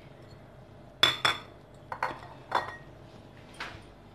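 Kitchen bowls clinking and being set down on a stone countertop: two sharp clinks about a second in, then a few separate, softer knocks.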